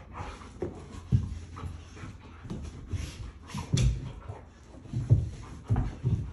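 A pitbull and a goldendoodle play-fighting: a run of short, low sounds and breaths from the dogs, the loudest about a second in and again near the end, with paws scuffling on carpet.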